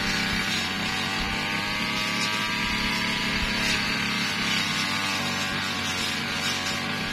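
Petrol brush cutter engine running steadily at high speed, its pitch drifting slightly up and down.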